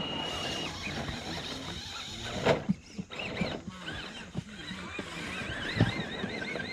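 Small electric motors of RC rock crawlers whining, the high pitch wavering up and down with the throttle, with a sharp knock about two and a half seconds in and another near six seconds.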